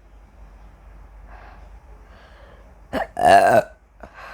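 A woman burps loudly once about three seconds in: a brief catch, then a half-second belch, brought up by the gas from gulped Coke.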